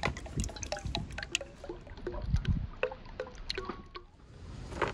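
Cooking oil poured in a thin stream into a large stainless steel pot of oil, splashing and gurgling with many small plops.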